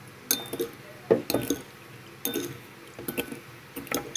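A metal spoon stirs a small ceramic bowl of fish-sauce dipping sauce, clinking irregularly against the bowl's side. Some strikes leave a short ring, and the liquid swishes faintly between them.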